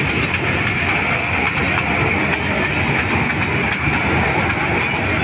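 Children's fairground toy train ride running on its small circular track, its wheels clattering on the rails in a steady, unbroken noise.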